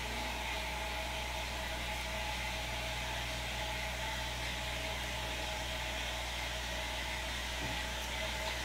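Steady low hum with an even hiss: background room noise, with no distinct handling sounds.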